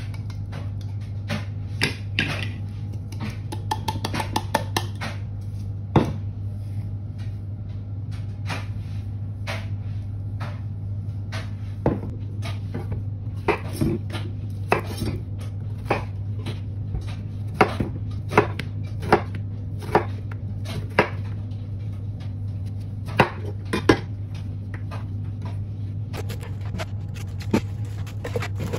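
A kitchen knife slicing courgette (zucchini) on a bamboo chopping board: irregular sharp knocks of the blade hitting the wood, spaced a second or so apart, over a steady low hum.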